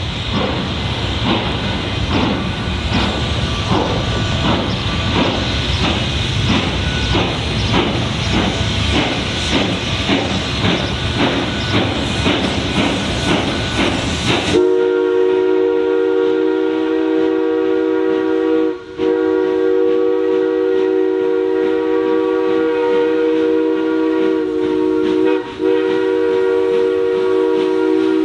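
Narrow-gauge steam locomotive running with a dense, rhythmic working noise, then, after a sudden cut about halfway through, the steam whistle of Durango & Silverton K-28 No. 473 blowing a long, steady multi-note chord, broken twice very briefly.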